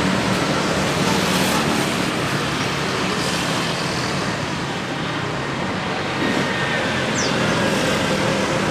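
Bus and street traffic noise: a steady engine rumble under a hiss of traffic, with no telolet horn sounding.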